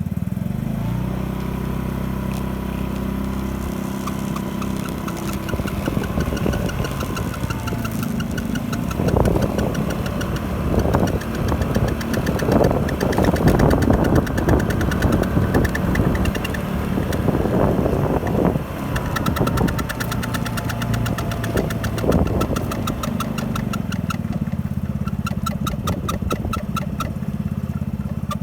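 Yamaha Majesty 125 scooter's single-cylinder four-stroke engine running steadily. It grows louder and rougher for several seconds in the middle, then settles back. A faint whine falls in pitch near the start and again about two-thirds of the way through.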